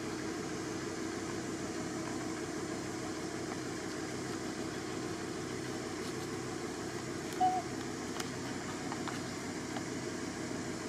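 Steady low hum of a running engine, with one brief squeak about seven and a half seconds in.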